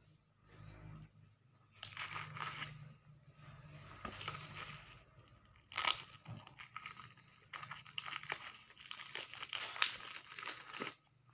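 Thin clear plastic wrap being pulled and torn off a comic book by hand, crinkling in irregular bursts, with one sharp crackle about halfway through.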